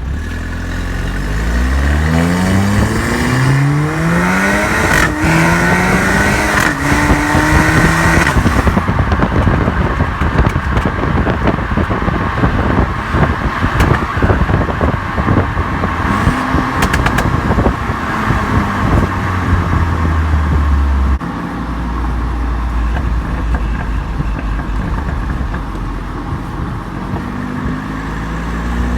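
Exhaust of a 2016 Audi A3 Quattro's turbocharged four-cylinder, with a catless downpipe and stock cat-back, recorded at the tail: it accelerates through several quick upshifts with rising pitch. Then, off the throttle, comes a long run of popping and crackling from the tune's overrun crackle setting. After about 21 seconds it settles to a steadier low drone before revving up again near the end.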